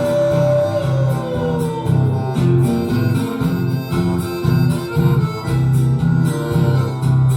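Chamamé music with guitar and a steady bass beat. A long held note slides down in pitch over the first two seconds.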